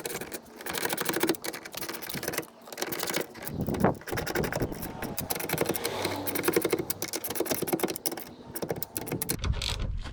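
Quarter-inch ratchet with a 10 mm socket clicking rapidly in quick runs, fastening the new side mirror assembly to the car door.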